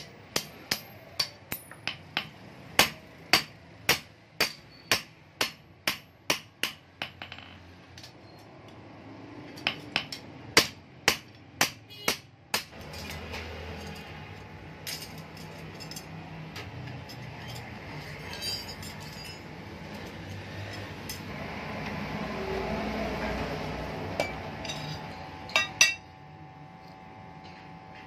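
Hammer striking a steel knife blade on an anvil, sharp metallic blows at about two a second in two runs. After that comes a steady noise that swells and fades, with two last knocks near the end.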